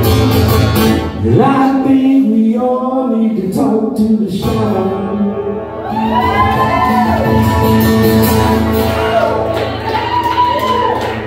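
Live acoustic guitar ringing under a voice singing long, wavering held notes.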